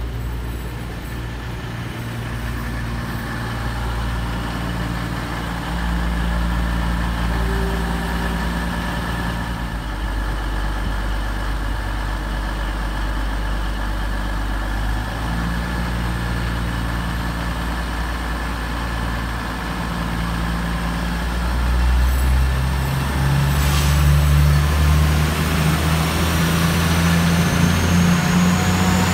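Class 222 Meridian diesel multiple unit's underfloor Cummins diesel engines running steadily at the platform. About 22 seconds in they grow louder as the train powers away, with a thin whine rising in pitch as it gathers speed.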